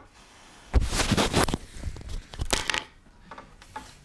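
Rustling and crackling handling noise from clothing rubbing against a clip-on lapel microphone as the wearer moves, in irregular bursts starting about a second in, with a second loud burst about two and a half seconds in.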